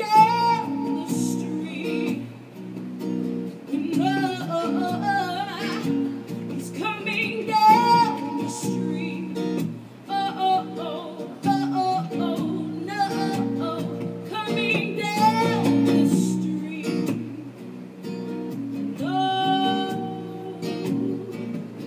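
A song: guitar chords played under a voice singing a melody in phrases, with a long held note near the end.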